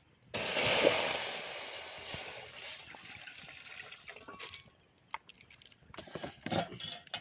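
Liquid poured into a hot cooking pot: a sudden loud hiss about half a second in that dies away over the next few seconds.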